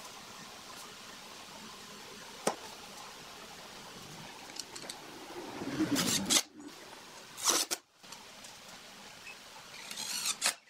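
Cordless impact driver driving screws through small steel angle brackets into a pine frame, in three short bursts about six, seven and a half and ten seconds in, the first building up over about a second and the loudest. A single sharp click comes earlier.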